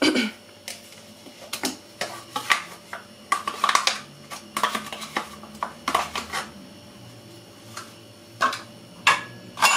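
A metal spoon scraping yogurt out of a plastic cup into a glass mixing bowl: irregular clinks and scrapes in clusters, with a few separate knocks near the end.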